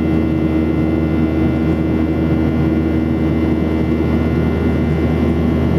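Steady cabin noise inside a Boeing 737-800 in flight: the engines and the air rushing past make a constant drone, with a low hum and a few steady held tones, unchanging throughout.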